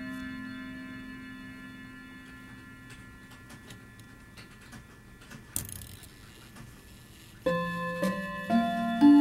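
Rod gongs of a German grand sonnerie clock ringing and fading away, then a run of light clicks as the minute hand is pushed round to the hour. Near the end the clock starts a new chime, striking a series of notes about half a second apart.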